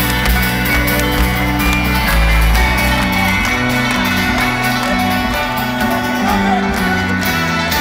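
Live folk-rock band playing an instrumental passage with no singing: deep upright-bass notes and keyboard over a steady drum beat, heard through the PA from within a large open-air audience.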